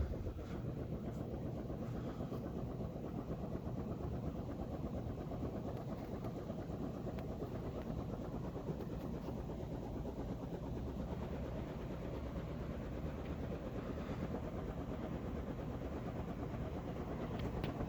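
SMC DC52 two-blade ceiling fan running steadily, a continuous low rushing of motor and moving air.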